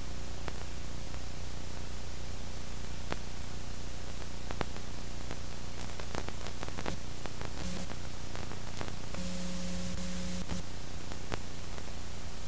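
Steady static hiss with a low hum underneath and scattered faint clicks, the noise of a soundtrack with no recorded sound on it. A short low buzz comes in about nine seconds in and stops a second later.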